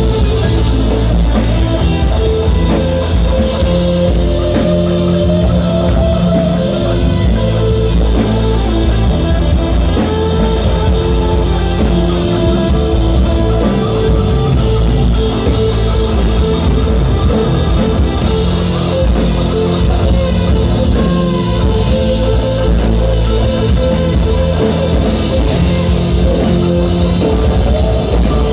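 Live progressive rock band playing an instrumental passage: drum kit with steady cymbal strokes, electric bass, acoustic guitar and keyboards holding long sustained notes.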